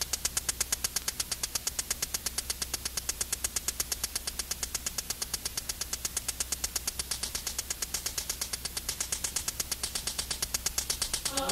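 Rapid, even electronic ticking pulse, about eight ticks a second, over a steady low hum: the sparse opening of a high-energy/new beat dance track. Sustained synth chords come in at the very end.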